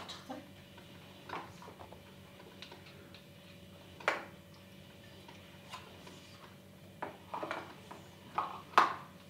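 Light plastic clicks and knocks of toddler's cups, bowl and spoon handled on a high-chair tray, scattered through and loudest near the end. A faint steady hum lies underneath.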